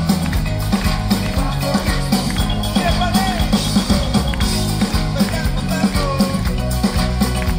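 Live pop band music at a concert, with a steady drum beat and heavy bass.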